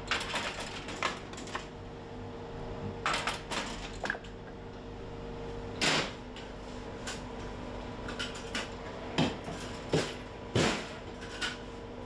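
Staff restocking a vending machine: a string of sharp clicks, knocks and rattles of packaged products and the machine's door and trays being handled, over a steady hum.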